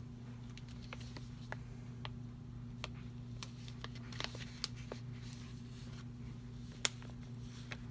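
Scattered light clicks and paper rustles from a hand handling a planner page and supplies, with one sharper click near the end, over a steady low hum.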